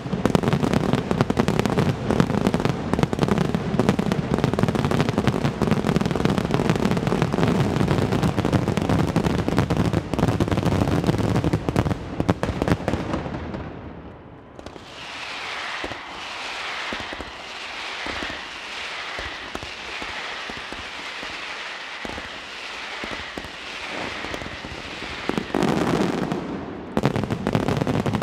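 Mascletà firecrackers going off in a dense, continuous barrage of bangs that cuts off suddenly about halfway through. A quieter stretch follows, then a last short burst of bangs near the end.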